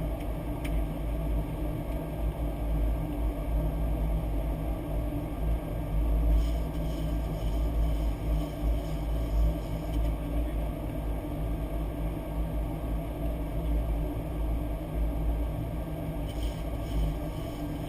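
Steady low rumble of a Boeing 737-800's flight deck in flight: airflow and engine noise with no break or change.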